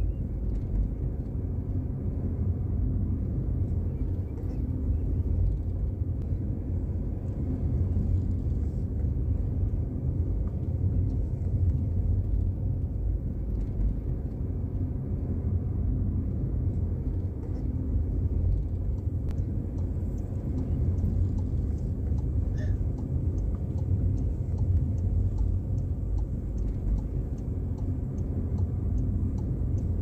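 Car driving along a road: a steady low engine and tyre rumble.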